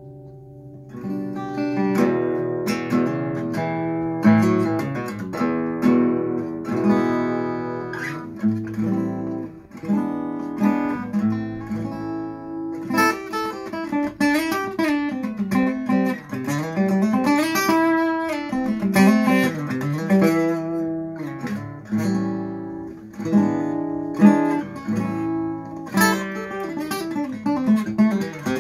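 Webber round-body cutaway acoustic guitar, cedar top with maple back and sides, played fingerstyle: a continuous flow of plucked notes and chords, with melodic runs that climb and fall. It starts softly on a ringing chord and picks up about a second in.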